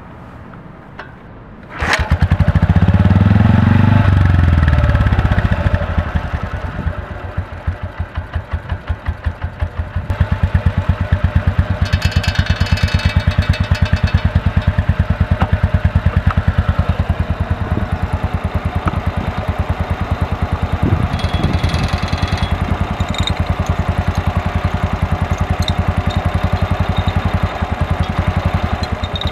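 BMW R27 single-cylinder four-stroke engine starting about two seconds in. It revs briefly, then settles into an idle with evenly spaced exhaust beats. The level falls away near the end as the engine starves of fuel, because the petcock was left closed.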